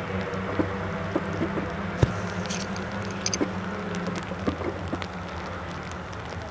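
Classic Mini race cars' engines running at a distance around the circuit, a steady drone that eases slightly toward the end, with scattered light ticks over it.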